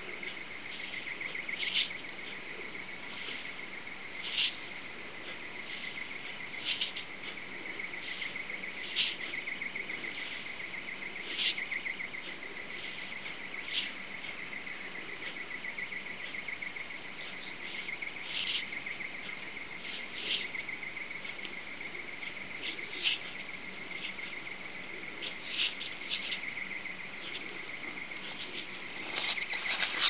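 Peacock butterfly flicking its wings open and shut, each flick giving a short, high, dry rasp, irregularly every couple of seconds. This wing-flick hiss is the species' startle defence against predators. Under it runs a steady, high, fast-pulsing whirr.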